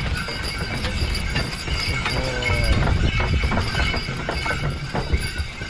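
Belgian draft horses pulling a sleigh at a steady pace: hooves clopping in the snow with sleigh bells jingling and a constant low rumble from the moving sleigh.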